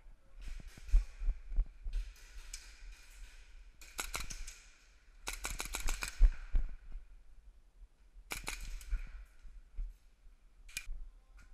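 Airsoft guns firing in about six rapid bursts of sharp clicks, the longest about a second and a half in the middle, over low bumps from movement.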